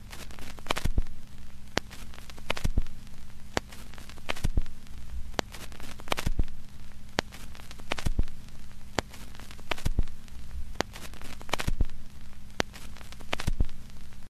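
Crackling static with a steady low hum and scattered sharp pops, swelling in loudness about every two seconds.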